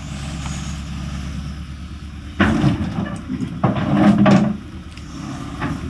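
Hitachi excavator's diesel engine running steadily, with two loud bursts of metal clanking and scraping from the machine working, about two and a half and four seconds in.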